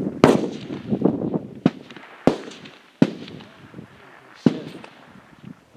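Rifle shots from an F-Class match firing line: five sharp cracks at irregular intervals, each trailing off in a short echo, the first the loudest.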